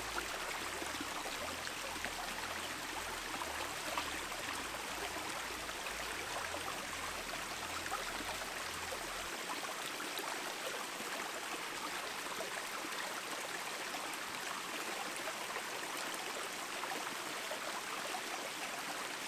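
Small shallow creek running over a rocky bed, a steady, even rush of water.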